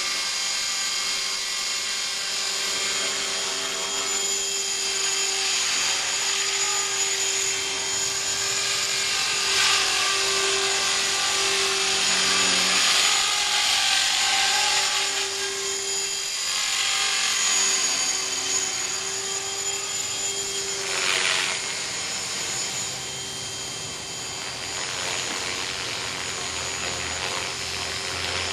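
Align T-REX 450SE v2 electric RC helicopter in flight: a steady high whine from its battery-powered electric motor and drive gears over the hum of the spinning rotor. The sound swells louder several times, most sharply about 21 seconds in.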